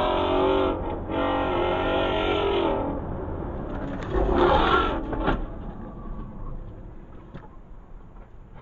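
A car engine revs hard with a wavering pitch as a car speeds along the highway. About four seconds in comes a loud, sudden crash of impact, with a sharp bang just after. Then only a low road hum remains, heard inside the dashcam car.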